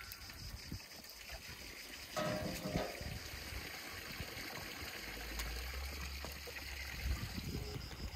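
Crickets chirping steadily, with a brief louder scrape about two seconds in.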